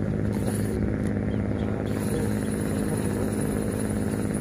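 An engine running steadily at a constant speed, a low even drone that does not change.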